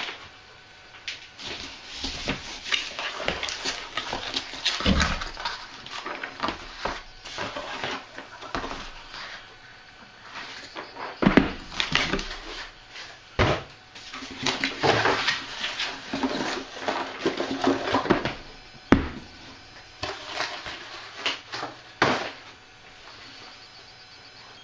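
Corrugated cardboard shipping box being opened by hand: flaps pulled and bent back, with scraping and crinkling cardboard, and several sharp knocks as the box and the puzzle box inside are handled.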